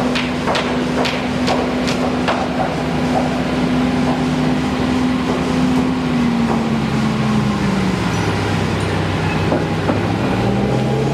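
An engine running steady, its pitch dropping a little past the middle and rising again near the end, with a series of sharp knocks about twice a second in the first couple of seconds.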